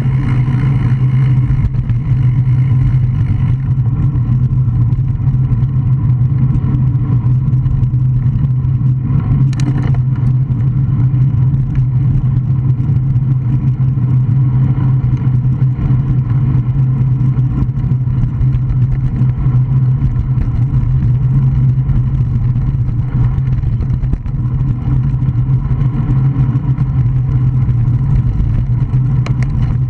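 Steady wind and road noise picked up by a Garmin VIRB action camera's microphone on a moving road bike: a strong, even low hum with a single sharp click about ten seconds in.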